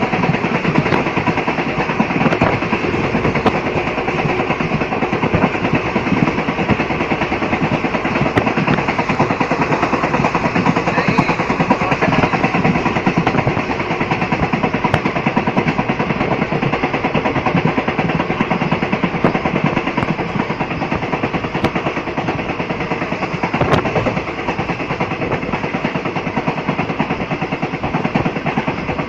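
Indian passenger train running: a steady, dense rattling rumble of the coaches and wheels on the track.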